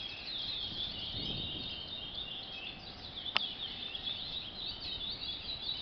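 Several young curiós (chestnut-bellied seed finches), still in song training, singing at once in a dense overlapping chorus of quick high chirps and trills. There is a single sharp click about three and a half seconds in.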